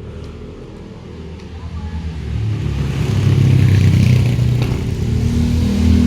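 Engine of a passing motor vehicle, growing louder from about two seconds in and staying loud.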